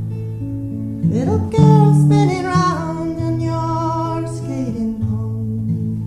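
Steel-string acoustic guitar playing slow sustained chords while a woman sings a slow melody over it. Her voice slides up into a long wavering note about a second in and eases off near five seconds.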